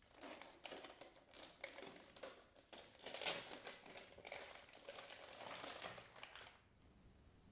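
Thin clear plastic bag crinkling and rustling as a pencil box is slid out of it: a dense run of small crackles, loudest about three seconds in, stopping about six and a half seconds in.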